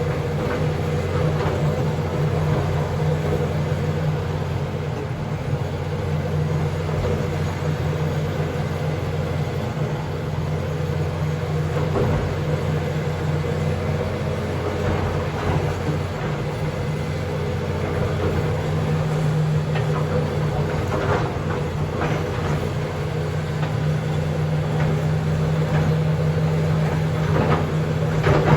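John Deere backhoe's diesel engine running steadily, with a few clanks now and then.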